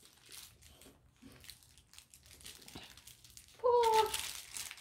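Plush dog toy's squeaker giving one short, loud squeak as the dog bites the toy, about three and a half seconds in, over faint rustling and crinkling of the toy.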